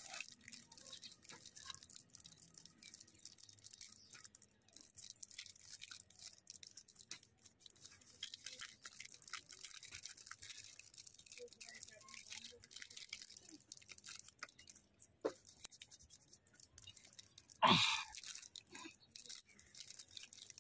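Plastic wrappers of Cadbury Perk chocolate bars crinkling and tearing as they are unwrapped by hand: a long run of faint, dense, scratchy crackles. A brief louder sound cuts in about eighteen seconds in.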